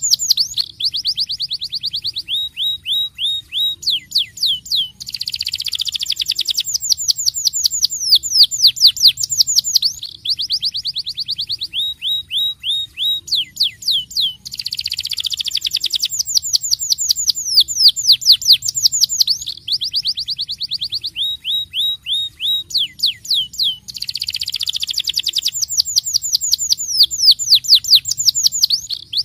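Domestic canary in full song, singing long rolling trills: each trill a fast run of repeated falling whistled notes, switching to a new trill every second or two, with brief breaks about every five seconds.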